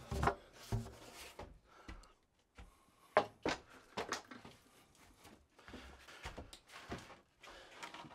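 A new lumber joist knocking and bumping against the old wooden floor framing as it is carried in and set alongside an old joist: a scattering of short, sharp wooden knocks, the loudest a few seconds in.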